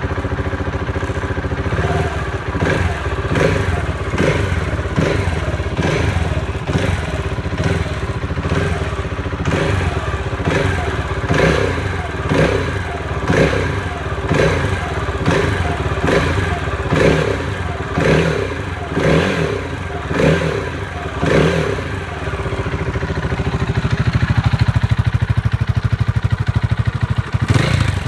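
KTM 690 Duke R's single-cylinder LC4 engine running, with its exhaust baffle fitted. It idles, then is blipped over and over, about once a second. Near the end it idles steadily and sounds louder and deeper, heard close to the muffler.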